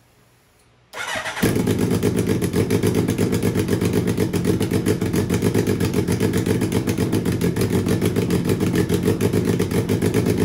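Turbocharged Suzuki Hayabusa inline-four engine cranked briefly by its starter and catching about a second in, then idling steadily at about 1,400 rpm with a fast, even exhaust pulse. It is on its first-start tune, running rough and very rich.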